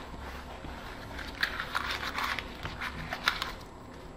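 Craft paper rustling and crinkling as it is handled, in a run of short crackly bursts from about a second in until shortly before the end.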